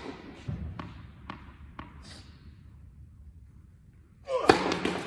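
Tennis ball bounced several times on a hard court before a serve, then struck hard with a racket on the serve about four and a half seconds in.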